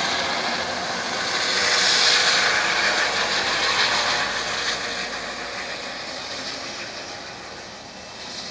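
Helicopter climbing away after takeoff, its rotor and turbine noise swelling to a peak about two seconds in, then fading steadily as it flies off.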